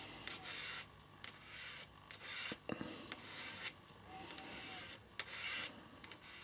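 Plastic card drawn back and forth over a metal solder-paste stencil as a squeegee: a series of faint scraping strokes, about one a second, with a few light clicks.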